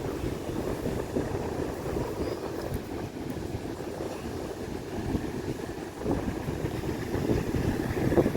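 Wind buffeting the microphone, a rough, uneven low rumble that gets louder in gusts over the last couple of seconds.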